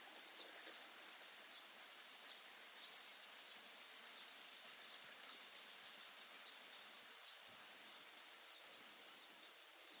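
Small birds chirping: faint, short high chirps scattered irregularly, a few each second, over quiet outdoor background noise.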